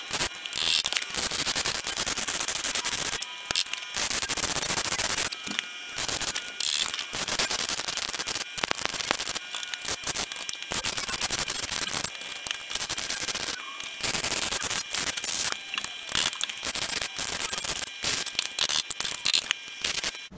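Welder laying stitch and plug welds on a steel car sill repair panel: a harsh, dense crackle that runs for a second or two at a time, stopping briefly between welds.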